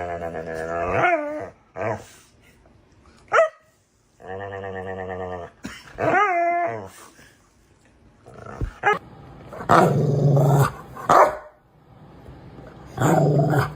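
A dog vocalizing: two long, low growls, each breaking into a wavering, rising yowl, then rougher, louder bark-like outbursts near the end.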